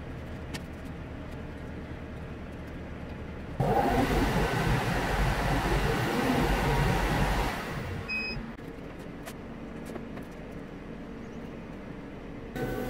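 Workshop machine noise. A low steady hum turns into a loud rush of noise with no pitch for about four seconds, then drops back, with a few light knocks. Near the end a steady whine starts.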